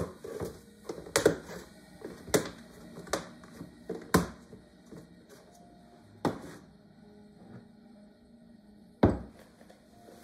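Plastic cookie tin being shut and handled on a kitchen countertop: a quick run of sharp clicks and knocks as the lid is pressed on, then a few separate knocks as the tin and a glass are set down, the loudest one near the end.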